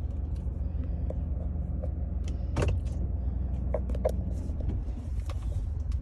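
Steady low rumble of a car heard from inside the cabin as it idles and rolls slowly. A few sharp clicks sound over it, the loudest about two and a half seconds in and two more around four seconds in.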